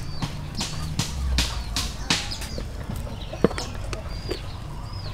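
Chickens clucking and chirping, over the scrapes and knocks of a plastic spatula spreading steamed rice on a stainless steel tray. One sharp knock about three and a half seconds in.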